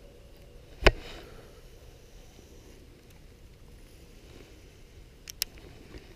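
A sharp knock about a second in, then a quick pair of clicks near the end: a baitcasting rod and reel being handled close to the microphone.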